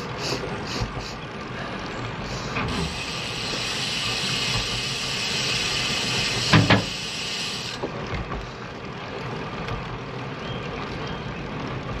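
Riding noise from a Lynskey Helix road bike: wind and tyre rumble, with a steady hiss that comes in a few seconds in and cuts off sharply about five seconds later, and a single thump just past the middle.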